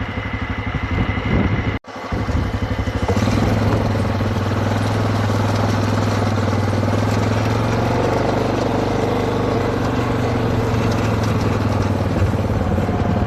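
A vehicle engine running steadily at low revs, its drone broken by a brief cut just under two seconds in and growing louder about a second later.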